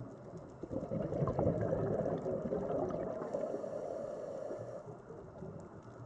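Scuba diver's exhaled bubbles burbling and crackling past the microphone underwater for about four seconds, starting about a second in, over a steady underwater hiss.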